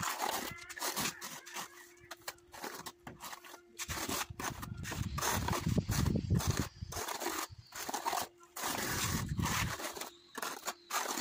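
Notched steel trowel scraping through tile adhesive on a concrete floor in repeated sweeping strokes, combing the adhesive into ridges.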